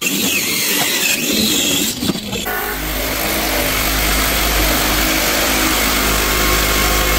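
Electric power tool motor running loud and steady; its note settles into an even pitch about two and a half seconds in.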